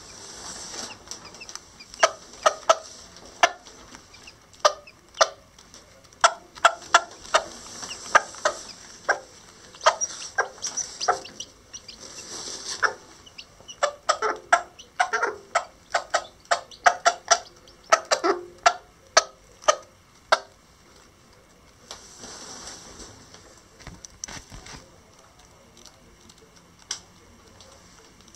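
Old English Game bantam hen giving short, sharp clucks, about two a second, stopping about twenty seconds in. This is a mother hen's food call to her chicks.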